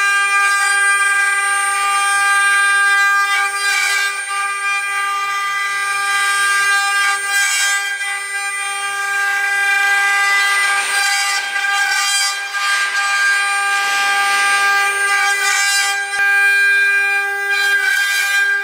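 Multi-head 4-axis CNC wood router running, its spindles giving a steady high-pitched whine while the bits carve the rotating wooden baluster blanks. A rush of cutting noise swells and fades every few seconds as the cuts bite into the wood.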